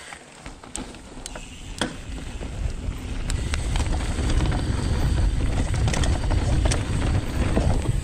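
Wind rushing over the microphone and mountain bike tyres rolling on a dirt trail, building over the first few seconds as the bike picks up speed downhill, with scattered sharp clicks and knocks from the bike.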